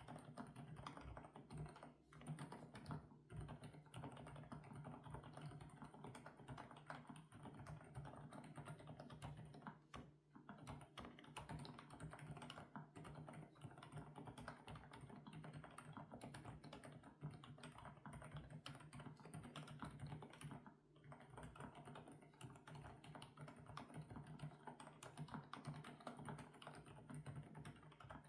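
Typing on an FL-Esports OG98 mechanical keyboard with Kailh Coconut Latte switches: a quick, continuous stream of keystroke clacks, with brief pauses about two, ten and twenty-one seconds in.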